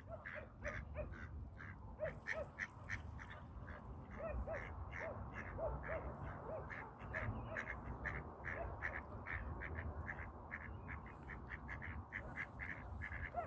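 Ducks on the water calling in a steady run of short quacks, about three or four a second, with paired lower arched calls now and then. A low steady rumble lies underneath.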